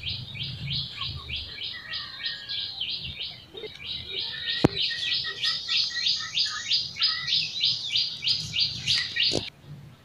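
A bird calling a fast, steady series of high chirps, about five a second, which cuts off suddenly near the end. A single sharp click comes about halfway through.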